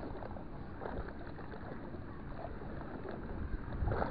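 Steady low rumble of wind and water at a seawall's edge, with a few faint clicks from handling a spinning reel and a louder knock near the end.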